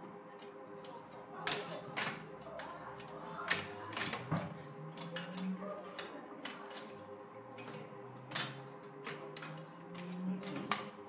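Sharp metal clicks and knocks as a floppy disk drive is slid into the metal drive bay of a desktop PC case and fitted, coming at irregular intervals over a faint steady hum.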